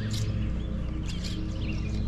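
Background music with steady low tones, and songbirds chirping over it a few times.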